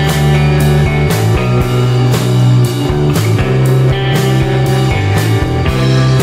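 Background rock music with guitar and drums, a steady beat of about two hits a second.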